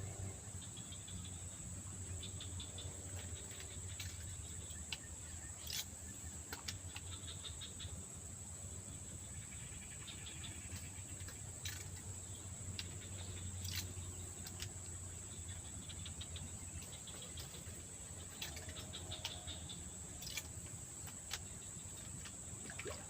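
Steady high-pitched insect trill, typical of crickets or cicadas, with short chirping calls of birds or insects repeating every few seconds and a few scattered sharp clicks.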